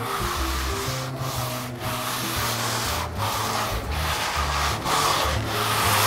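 Hand sanding block rubbed along the flat face of a wooden boat plank in long back-and-forth strokes, each a little under a second, with a brief pause at each turn: a final smoothing pass to take off small lumps and bumps.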